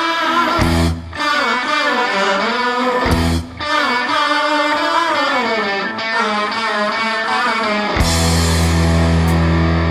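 Live blues-rock band playing an instrumental passage: an electric guitar plays a lead line of bending, wavering notes over bass. About eight seconds in, the band settles on a long held low note.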